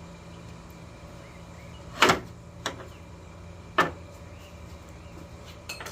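Four sharp knocks of hard parts or hand tools being handled during repair work on a car's front end, the first about two seconds in and the loudest, over a steady low hum.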